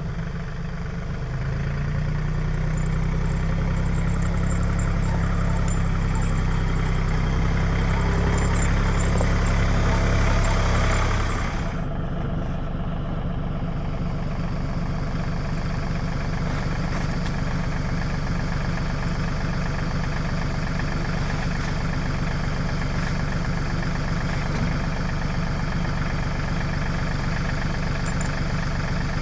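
Tractor engine running steadily, louder for about the first eleven seconds, then turning suddenly a little quieter and holding steady.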